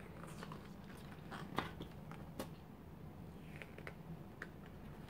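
Thick card pages of a spiral-bound desk calendar being turned by hand: soft rustling with a few crisp taps and clicks, the two sharpest about one and a half and two and a half seconds in.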